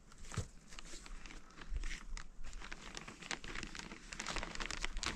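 Crinkling and rustling of roof sheeting and a blanket being pulled and handled, a dense run of small irregular crackles.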